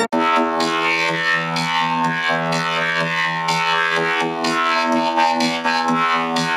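Effects-processed electronic music: one long held droning note, rich in overtones and wavering slightly, with faint regular beats about once a second behind it.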